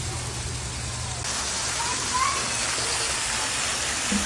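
Spray from a water jet falling onto a pond surface: a steady, rain-like patter and hiss that grows louder about a second in.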